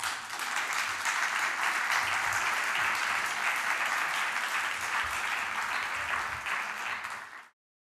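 Audience applauding steadily, the clapping cutting off suddenly near the end.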